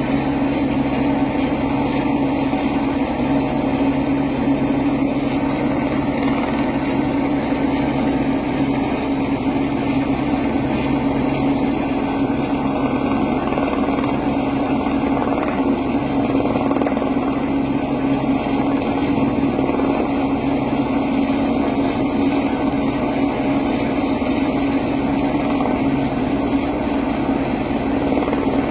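Helicopter running steadily at close range: a loud, constant engine-and-rotor drone that holds one pitch.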